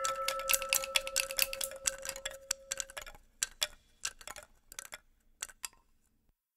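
End of the soundtrack music: rapid clicking and ticking over a held tone. The tone stops about three seconds in, and the clicks thin out and die away to silence near the end.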